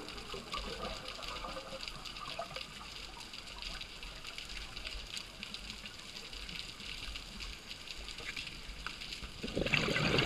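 Underwater ambience heard through a dive camera: a faint, steady crackle of tiny clicks over a low rumble. Near the end, the gurgling rush of a scuba diver's exhaled regulator bubbles starts to rise.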